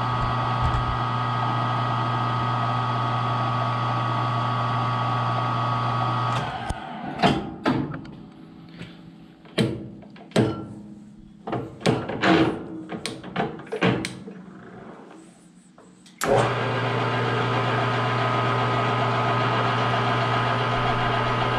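Grizzly G0776 lathe running steadily, a motor-and-gear hum, with a cast iron pulley in its four-jaw chuck. About six seconds in the hum stops, and a string of separate clicks and knocks follows as the headstock controls are handled. About sixteen seconds in the lathe hum comes back suddenly.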